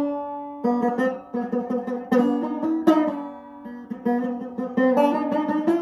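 Banjo played in a slow, free-form way, picked notes and chords left to ring out. A chord rings alone at the start, the playing goes quieter a little past the middle, then picks up again near the end.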